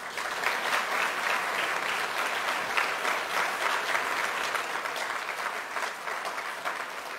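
Large seated audience applauding, many hands clapping together. It starts suddenly and eases off a little near the end.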